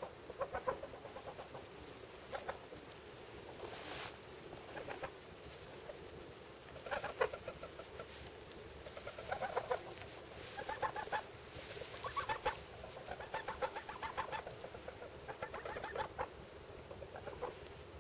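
White domestic geese giving short runs of quick, low calls every second or two, with straw rustling now and then.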